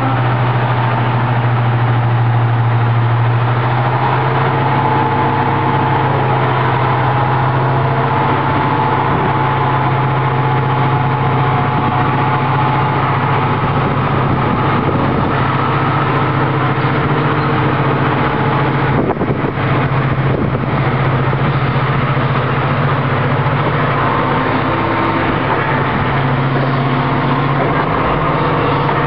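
The twin Napier Deltic two-stroke opposed-piston engines of British Rail Class 55 Deltic locomotive 55019 are working hard as it pulls its train away. They make a loud, steady deep drone with a higher whine over it, which eases briefly about two-thirds of the way through.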